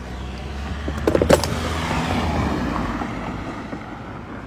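A road vehicle passing by: a low rumble with tyre noise that swells about two seconds in and fades again. There are a few sharp clicks about a second in.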